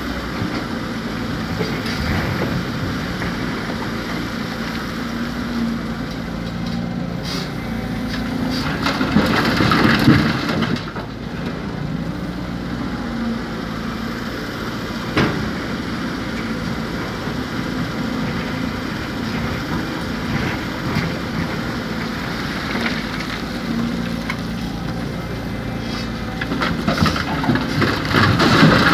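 Diesel engine of heavy earthmoving machinery running steadily, swelling louder twice with a rougher, noisier rush, and a single sharp knock in between.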